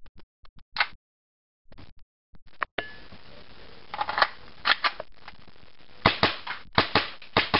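KSC CZ75 gas blowback airsoft pistol, all ABS plastic: scattered handling clicks, then a magazine clacking into the grip about four seconds in. From about six seconds there is a rapid string of sharp gas blowback shots, several a second, each with the plastic slide cycling.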